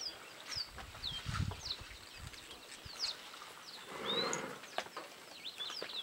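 Birds calling over and over with short, falling chirps. A low rumble comes about a second and a half in, and a brief rushing noise about four seconds in.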